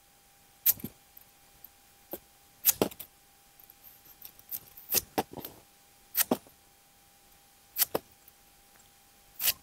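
A machete slicing a cucumber held in the hand: about eight short, sharp cuts at uneven intervals.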